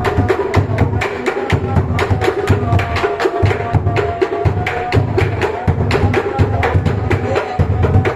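Bedug, the large mosque drum, beaten in a fast, continuous rhythm: deep booms from the drumhead under a rapid stream of sharp wooden knocks.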